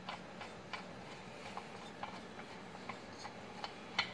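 Faint, irregular light clicks and ticks of a chainsaw being handled during reassembly, a few every second, with a sharper click near the end.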